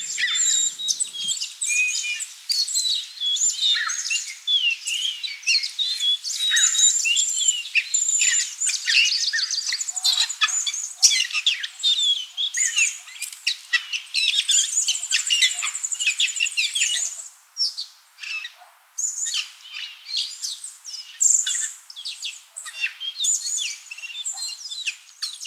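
Many small birds chirping and singing at once, a dense chorus of short high calls and trills that briefly thins out about eighteen seconds in.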